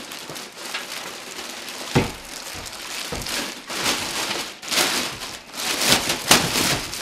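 Thin plastic bag crinkling and rustling as it is pulled off a computer case, busier in the second half, with a single thump about two seconds in.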